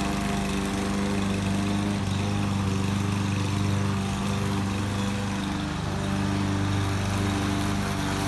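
Lawn mower's small petrol engine running steadily, its pitch shifting slightly now and then.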